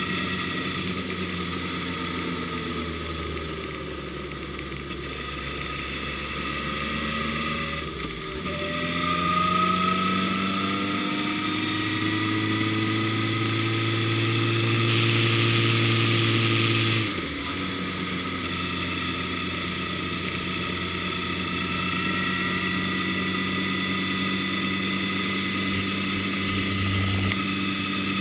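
Car engine and road noise heard from inside a moving car. About eight seconds in the sound dips briefly and the engine pitch then rises. Midway there is a loud hiss lasting about two seconds that starts and stops abruptly.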